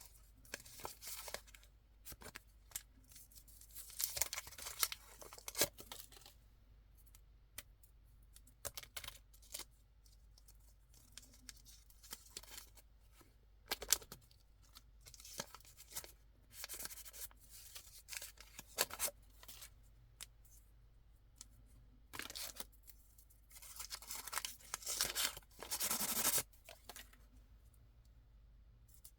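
Candy packaging being torn open and handled by hand: irregular bursts of tearing and crinkling with scattered sharp clicks, heaviest about four seconds in and again near the end.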